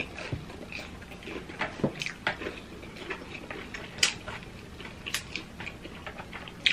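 People eating breaded fried pork cutlet with chopsticks: chewing and mouth sounds, with irregular sharp little clicks and crackles.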